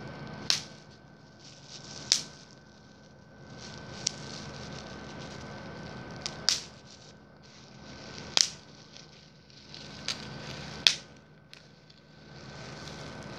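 Bubble wrap being squeezed and popped by hand: sharp single pops every second or two, about eight in all, over the steady crinkling of the plastic sheet.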